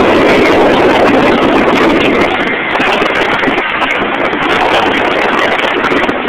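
Steady rush of road and wind noise from a car driving along, loud and even, easing a little about two seconds in.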